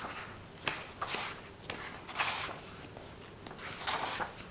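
Paper rustling as pages of a paperback book are turned by hand, in several short swishes.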